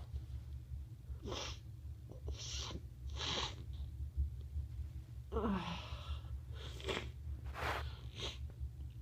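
A congested person sniffling repeatedly through a blocked nose: about seven short sniffs in a row. One longer sniff about five seconds in has a falling pitch.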